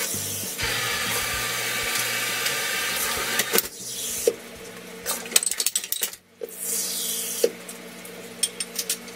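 Tap water running into a stainless kitchen sink for about three seconds, then clinks of dishes and bowls being rinsed and handled. There is a second short run of water and more clinks near the end.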